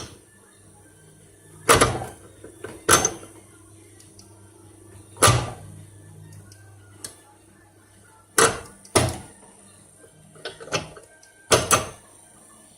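Homemade lathe running with a steady hum while its feed apron's levers and gears are shifted, giving about nine sharp clunks, some in quick pairs near the end.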